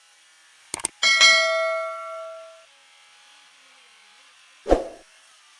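Subscribe-button animation sound effect: a quick double click, then a notification-bell chime that rings and fades over about a second and a half. A short whoosh comes near the end.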